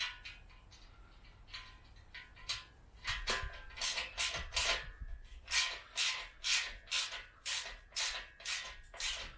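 Ratchet spanner tightening a bolt on a steel engine crane, in short rasping strokes of about two a second that start about three seconds in, after a few scattered strokes.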